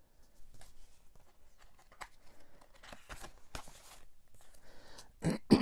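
Stiff printed cards being handled and flipped through in the hands: soft paper rustles, slides and light taps. Near the end a short voice sound falls in pitch.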